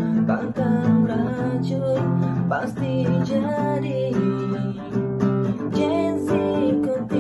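Background music: acoustic guitar strumming steadily.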